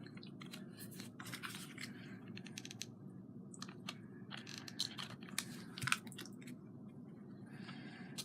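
Faint, scattered small clicks and scratches of hands and tweezers working at a craft piece, picking dried glue off it, over a low steady room hum.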